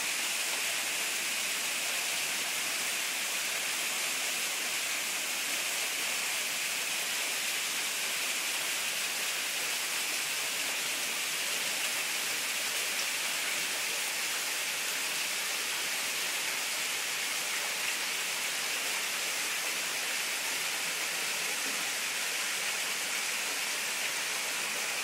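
Small waterfall splashing down rocks into a pool: a steady, even rushing hiss of falling water.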